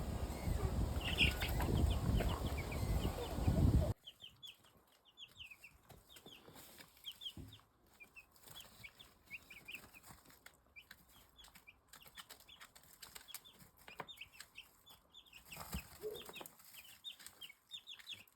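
Chicks peeping: many short, high chirps, one after another. For the first four seconds a loud low rumbling noise lies over them, and it cuts off abruptly.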